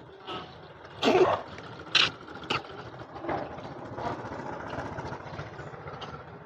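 Street traffic passing, with a few short sharp noises in the first half, the loudest about a second in.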